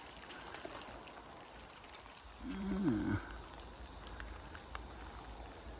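A brief low wordless vocal sound, a grunt or hum from a man, about two and a half seconds in, over faint rustling clicks and low background rumble.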